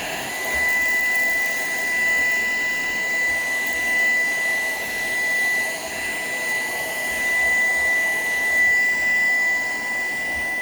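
Shark PowerDetect vacuum cleaner running steadily, a motor whine over a rushing airflow, its level swelling and easing slightly as it is worked back and forth.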